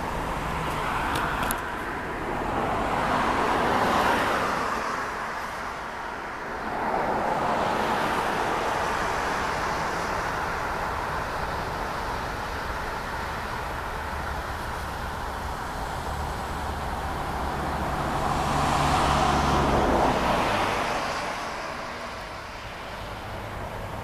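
Road traffic going by: cars pass a few times over a steady outdoor hum, each one swelling and fading, the loudest about three-quarters of the way through.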